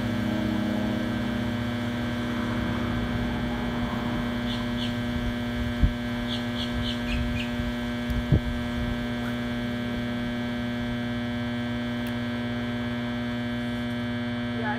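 Steady electrical hum, a low drone with many evenly spaced overtones, which the uploader blames on a broken generator. Two short knocks come about six and eight seconds in, with a few faint high chirps between them.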